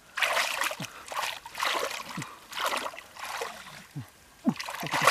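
Hands groping through shallow muddy water, splashing and sloshing in strokes about once a second, with short low plops between the strokes.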